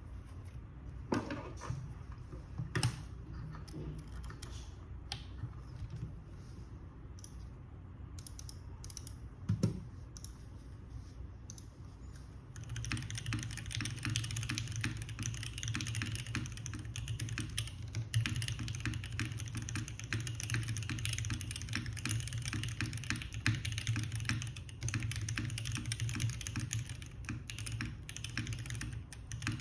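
Keycult No. 1 Rev. 2 custom mechanical keyboard with lubed JWK Popus linear switches on a brass plate, gasket-mounted, being typed on. Single keystrokes come a few at a time with pauses at first, then from a little under halfway it turns to steady fast typing.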